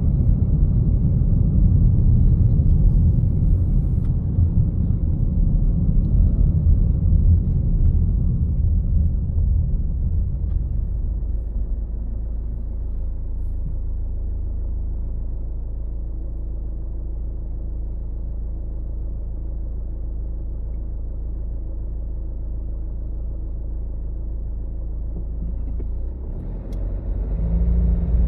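Road traffic rumble from driving: low engine and tyre noise, louder for the first third, easing to a quieter steady low hum through the middle, then building again near the end.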